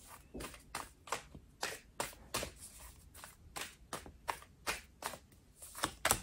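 A tarot deck being shuffled by hand, the cards slapping and flicking against each other in a steady run of short clicks, about two or three a second.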